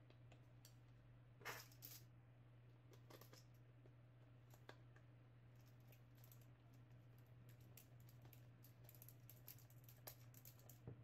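Faint scattered clicks and ticks of a small screwdriver working the fine-threaded battery-cover screw into the plastic case of a multimeter, with a sharper click about one and a half seconds in and more frequent ticks in the second half. A steady low hum sits underneath.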